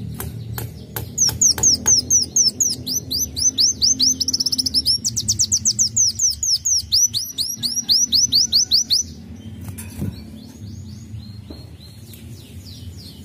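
A sunbird sings a fast, loud trill of repeated high, downward-slurred notes, about five a second, lasting some eight seconds. Fainter chirps follow near the end. A few sharp clicks come just before the song starts.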